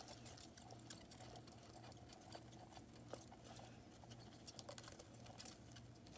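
Faint, irregular crisp clicks of a bearded dragon chewing a cricket, over a low steady hum.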